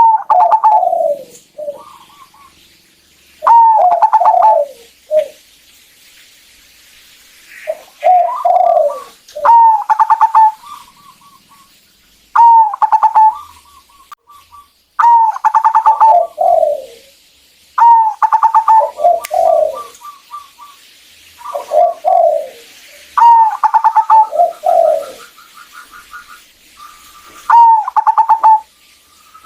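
Zebra dove (perkutut) singing its song about ten times over. Each phrase is a clear cooing note followed by a falling trill, with quick runs of fainter staccato notes between phrases.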